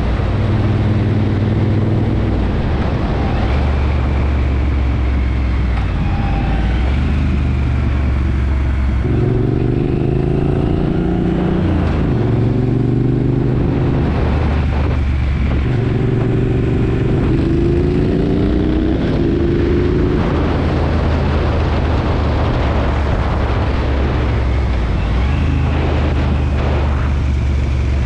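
2017 Triumph Bonneville Bobber's 1200 cc parallel-twin engine running through a British Customs Turn Out aftermarket exhaust while riding. The engine note rises as it pulls hard twice, about nine and sixteen seconds in, and holds steadier in between, with wind rush on the microphone throughout.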